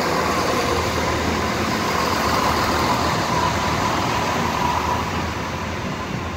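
Class 170 Turbostar diesel multiple unit passing close by: its underfloor diesel engines and wheels make a steady rumble with a steady whine over it.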